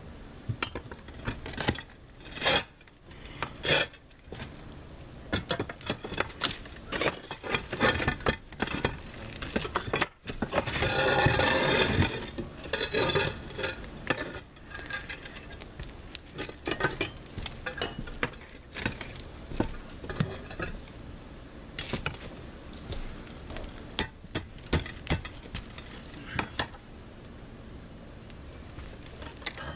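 Metal hand tools clinking, knocking and scraping against concrete roof tiles during tile removal: a busy run of sharp clicks and knocks, with a longer scrape about a third of the way through.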